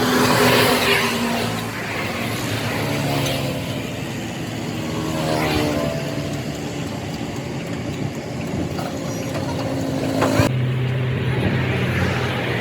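Motor vehicle engines running, with vehicles passing by. The sound changes abruptly about ten seconds in.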